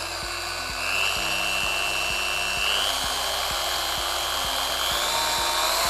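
Schtaer SCH-74-12P random-orbital polisher (76 mm pad, 12 mm throw) running free with no load, a steady motor whine that steps up in pitch a few times as its speed setting is turned up.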